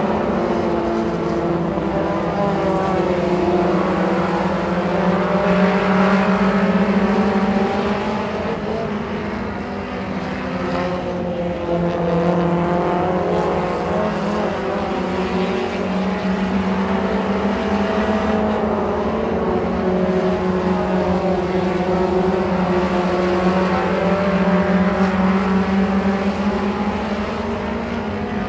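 Several dirt-track mini stock race cars' four-cylinder engines running hard while racing, their pitch rising and falling as they accelerate, lift for the turns and pass by. A little quieter about ten seconds in.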